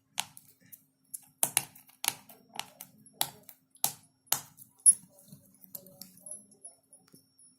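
Sharp, irregular clicks and taps of hands handling a sealed phone box and its packaging as it is opened, about a dozen in the first five seconds, then fainter handling.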